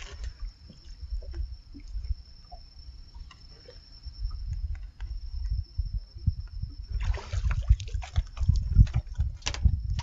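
Handline being hauled in from a small wooden boat, then splashing and clatter as the hooked fish reaches the surface and is swung aboard, starting about seven seconds in.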